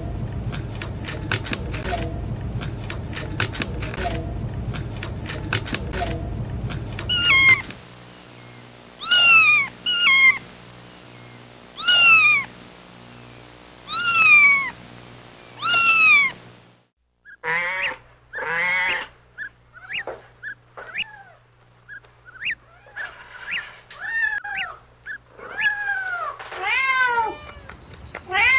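Kittens mewing: a run of high mews that fall in pitch, then many shorter, quicker mews. These follow several seconds of rapid clicking and rustling.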